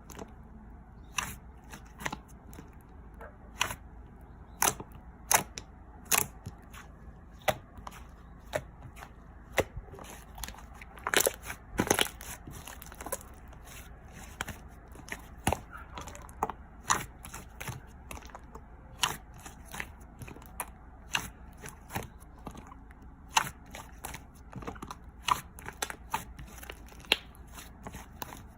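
Slime being squished and pressed by hand, giving sharp pops and clicks every second or so, with a quick cluster of louder pops about eleven seconds in.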